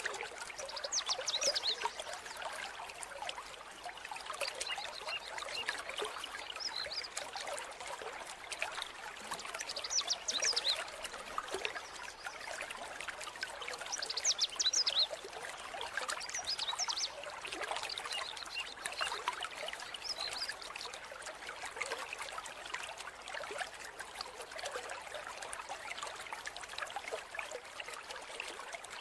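Mountain stream water trickling and pouring steadily, with louder splashing bursts now and then.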